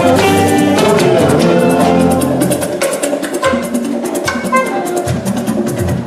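Live band music with drums and hand percussion keeping a steady beat over sustained chords. The low held notes drop away about halfway through, leaving the percussion more to the fore.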